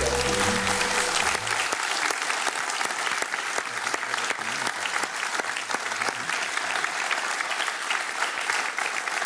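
Studio audience applauding steadily, with the last of a music bed fading out in the first couple of seconds.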